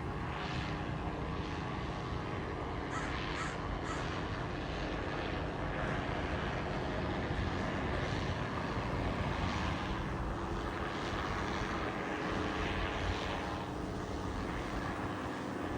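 A large drone flying overhead, its engine buzzing steadily like a chainsaw, while crows caw several times.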